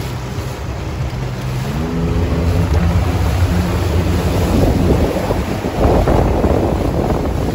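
Outboard motor of an inflatable coach boat running and speeding up about two seconds in. Wind on the microphone and rushing water grow louder through the second half.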